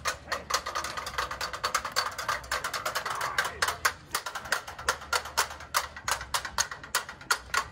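Rapid, uneven tapping or clicking on a hard surface, several taps a second, from a street performer's percussion rig.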